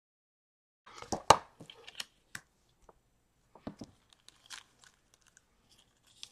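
Thin plastic baggie crinkling as it is handled and pressed flat by hand: short crackles and sharp ticks in two clusters, one about a second in and another near the middle.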